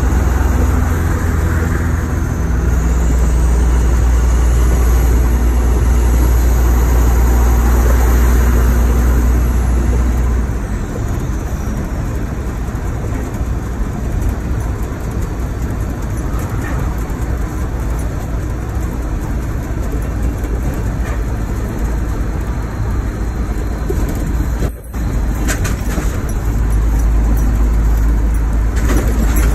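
Mack truck diesel engine, heard from inside the cab, pulling hard for about ten seconds with a faint high whistle rising and falling over it. It then eases off and runs quieter, and comes back on hard near the end.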